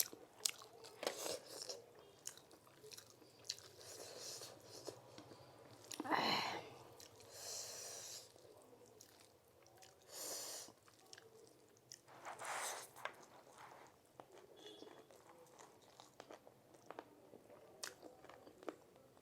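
A person chewing and biting food close to the microphone, with small crunches and several louder, noisy mouth sounds spread through it.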